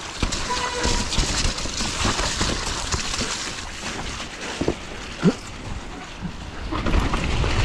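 Hardtail mountain bike riding fast down a slick, muddy trail: a continuous rush of tyres on wet dirt and wind on the microphone, with many quick rattles and knocks from the bike over bumps.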